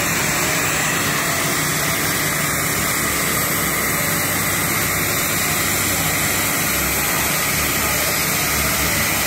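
TIG welding arc burning on the joint between a slip-on flange and a steel pipe: a steady loud hiss with a low hum under it and no break.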